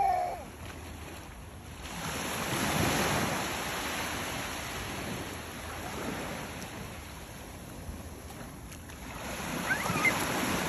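Sea waves washing onto a beach. The surf swells about two seconds in and again near the end.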